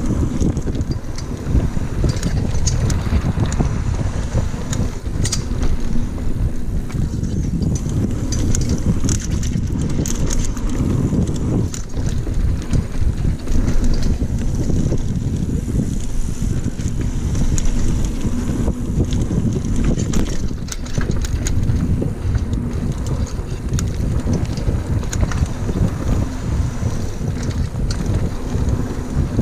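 Wind buffeting the microphone of a camera on a mountain bike riding fast down a dirt trail, over a steady rumble of tyres on the ground, with many sharp clicks and rattles scattered through it.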